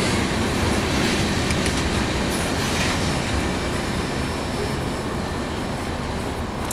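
Freight train cars rolling past close by, a steady noise of wheels on rail with a few faint clicks at the rail joints, slowly fading as the end of the train goes by.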